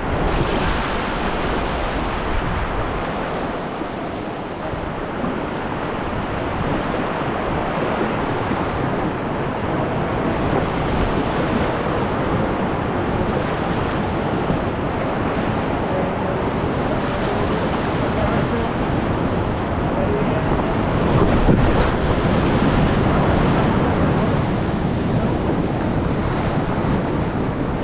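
Steady rush of fast-flowing creek water, loud and unbroken.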